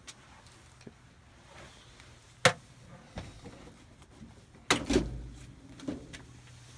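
Sheet-metal access panel of a Goodman air handler clanking as it is worked loose and lifted off: a sharp click about two and a half seconds in, then a loud cluster of knocks and a thud near five seconds, and a lighter knock just after.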